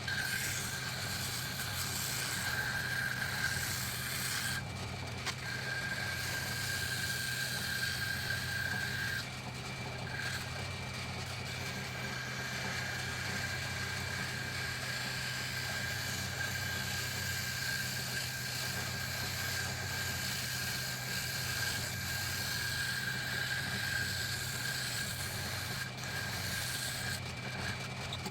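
Wood lathe running, with a steady low hum, a higher whine and a hiss of the work on the spinning wood. The whine and hiss drop out briefly a few times, about five seconds in, around ten seconds in and near the end.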